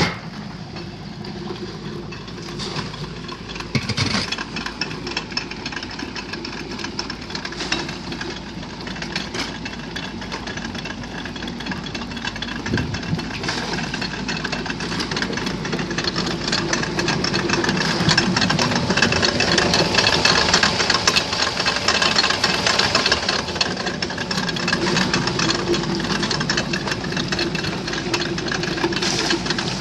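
A front-wheel-drive Toyota Corolla's engine running steadily and turning a homemade clay blender through its drive shaft and drive wheel, with many small knocks mixed in. It grows louder over the first half and then holds.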